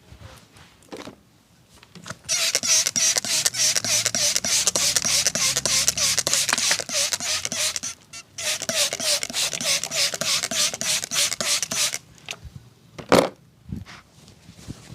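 Fast rhythmic hand tapping of a percussive head massage, several strikes a second, in two long runs with a brief break in between. A single loud sharp smack follows about a second after the tapping stops.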